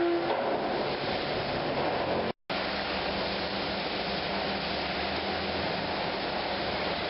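Steady machinery noise of a concrete paving-slab plant running: a dense, even rush with a faint low hum underneath. The sound cuts out for an instant about two and a half seconds in, then carries on unchanged.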